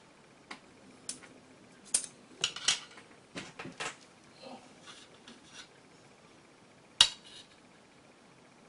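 Chopsticks and a porcelain soup spoon clicking and clinking against a stainless steel serving platter while scooping fried rice: a run of light, irregular taps in the first four seconds, a few softer ones after, and one sharper clink about seven seconds in.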